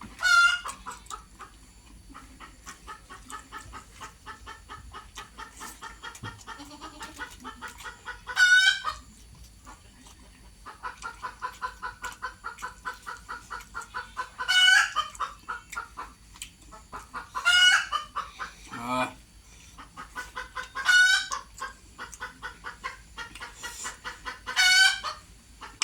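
Bird calls: long trains of fast, evenly repeated notes, broken six times by a loud, short call that drops in pitch.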